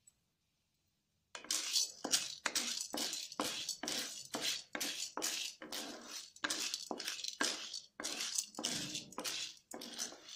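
Spatula stirring dried popcorn kernels in ghee in a kadai: the kernels rattle and the spatula scrapes the pan in short strokes, about two a second, starting about a second and a half in.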